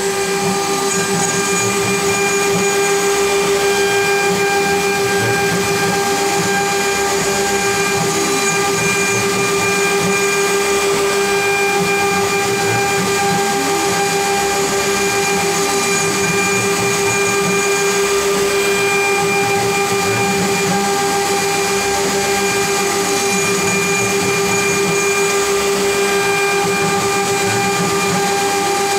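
CNC router's spindle motor running with a steady high-pitched whine while a ball end mill cuts a 3D contour finishing pass in a wood panel.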